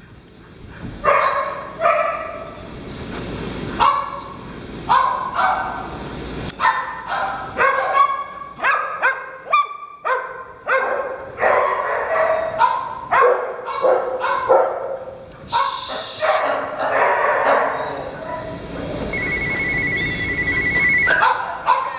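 Dogs barking repeatedly at play, short barks coming about one or two a second, some overlapping.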